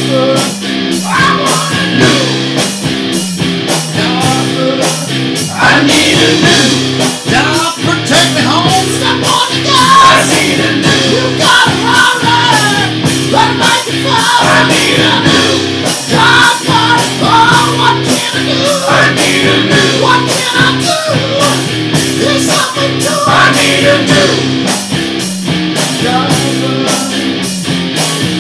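Hard rock music with distorted electric guitars over a steady, driving drum beat. Through the middle a lead line bends up and down in pitch over the rhythm.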